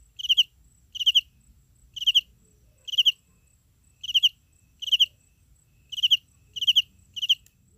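A cricket chirping in a steady rhythm, about one chirp a second, each chirp a short high-pitched trill of three or four quick pulses; the last few chirps come closer together. A faint steady high whine runs behind it.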